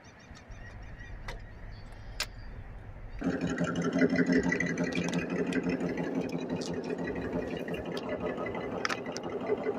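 A vehicle engine starts suddenly about three seconds in and runs on steadily at a constant pitch, after a faint low rumble; a few sharp clicks sound now and then.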